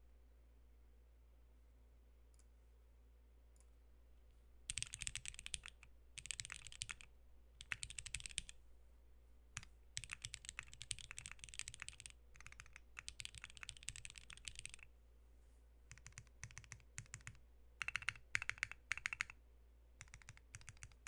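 Typing on a Maggio60 custom mechanical keyboard with a half carbon-fibre plate, O-ring mount, lubed JWK Black switches with Cherry tops and DCS-profile keycaps. It is quiet apart from a couple of faint clicks, then rapid runs of key clacks start about five seconds in, with a brief pause about three-quarters of the way through.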